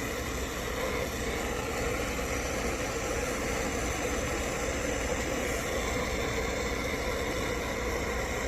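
Steady mechanical hum with an even drone that holds without change.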